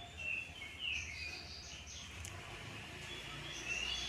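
Birds chirping in the background, short sliding calls throughout, then a quick run of repeated chirps near the end.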